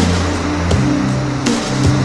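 Background music with a held bass line that shifts pitch less than a second in, and a regular percussion beat.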